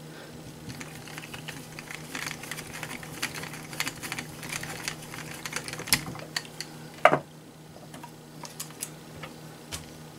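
Light clicking and ticking of a screwdriver, small screws and parts being handled during hand reassembly of an HSP RC truck chassis. There is a brief falling squeak about seven seconds in, the loudest sound.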